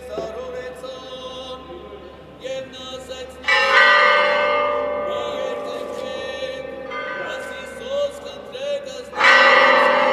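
A church bell struck twice, about six seconds apart, each stroke ringing on and slowly dying away. Faint chanting voices are heard before and between the strokes.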